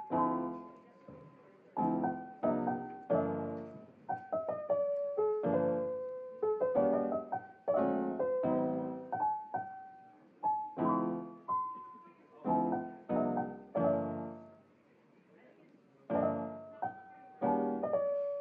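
Background piano music: a gentle melody of single notes and chords, each struck and left to fade, with a brief pause about three-quarters of the way through.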